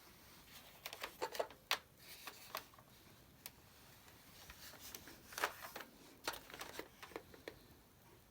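Faint, scattered clicks and taps of a plastic Nerf blaster being handled and turned over, with the loudest ones about a second in and again around five to six and a half seconds in.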